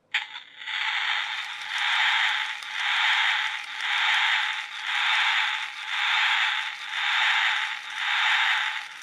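Sound-effect chip of a toy racing car playing through its small 8-ohm speaker: a hissing noise that swells and fades about once a second, switching on abruptly and cutting off near the end.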